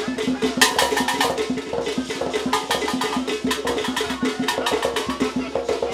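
Traditional Ghanaian drum ensemble playing a fast, dense rhythm of sharp strikes, over a steady low tone.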